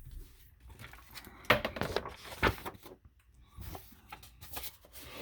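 Paper pages of a thick comic book omnibus being turned and handled: a run of short rustles and swishes, the loudest about one and a half and two and a half seconds in.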